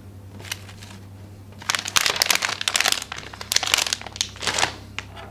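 Plastic packaging crinkling and crackling as it is handled and opened, in bunched bursts through the middle of the stretch, fainter at the start and end.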